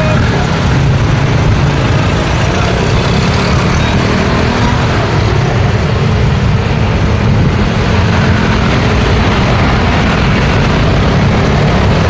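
Street traffic of motor scooters and trucks: a loud, steady low engine rumble under the even hum of vehicles running and passing close by.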